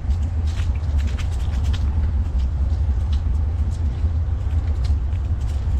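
Steady low rumble of wind buffeting the microphone during a bike ride, with light scattered ticks over it.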